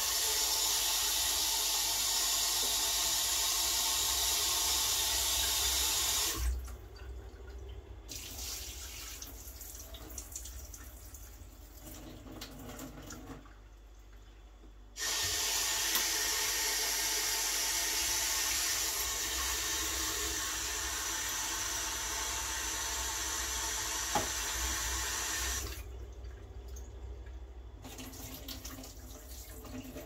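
Kitchen tap running into a sink, a steady rush of water that stops about six seconds in and comes on again about halfway through for some ten seconds, with faint clinks of handling at the sink between.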